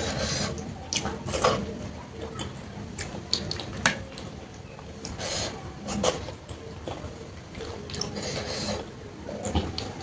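Close-miked eating sounds: wet squelches and smacks of watery rice (panta bhat) being handled and chewed, with scattered small clicks and short bursts every second or so.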